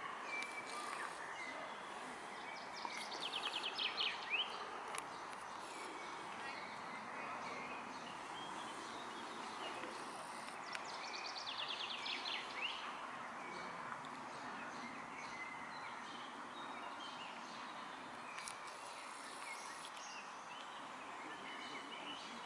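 A songbird singing a short rapid trill twice, about eight seconds apart, over a steady hiss of outdoor background noise.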